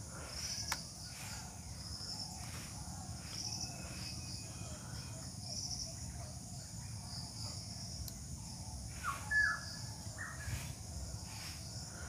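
Background ambience of insects chirping in a high, pulsing drone, with a few short bird chirps in the last few seconds, over a steady low hum.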